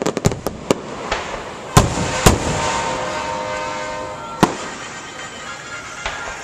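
Aerial firework shells bursting: a quick string of sharp bangs at the start, two loud booms about two seconds in, and another bang near the middle, with crackling between them.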